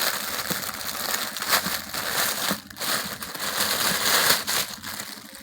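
Plastic packaging crinkling and rustling as a plush toy elephant is pulled out of it.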